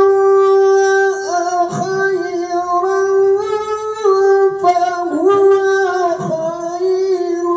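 A man's voice reciting the Quran in a melodic, sung style (tilawah), holding long notes and sliding through ornamented turns between them.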